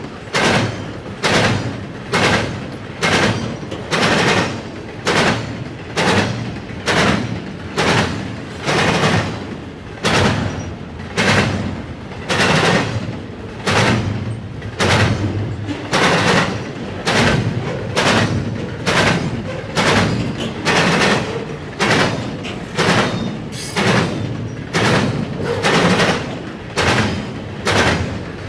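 Steel wheels of a passing double-stack container train banging over a railroad crossing diamond: a steady rhythm of sharp clanks, about one a second and often in quick pairs as each truck's axles cross, over the continuous rumble of the cars.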